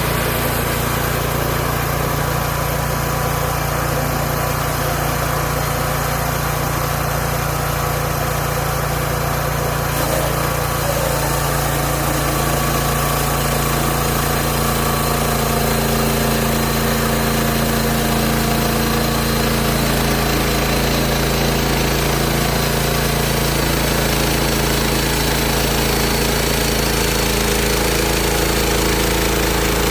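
Engine of a Hud-son Homesteader 30 portable bandsaw sawmill running steadily, getting a little louder and fuller about eleven seconds in.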